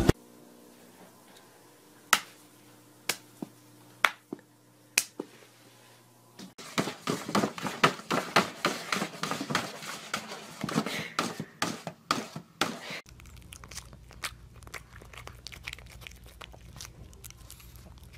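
A few scattered faint clicks, then about six seconds of dense, rapid crinkling as a cat plays with a crinkly shiny bag. After that, over a low hum, faint smacking from a pug mouthing a banana.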